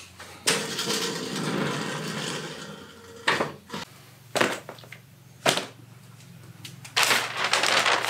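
Handling noise from assembling a garden glider chair: a long scraping, rustling sound from about half a second in to about three seconds, then three short knocks or clatters as parts in the cardboard box are moved, and paper crinkling near the end as the instruction sheet is picked up.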